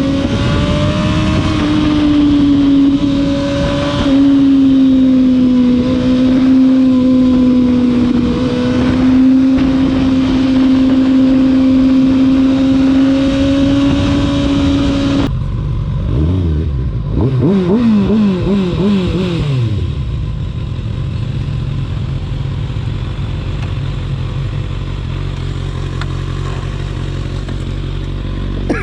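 Kawasaki ZX-6R sport bike engine holding a steady high-pitched note under wind rush while riding. After a sudden change about halfway through, the revs rise and fall several times, then settle to a low idle.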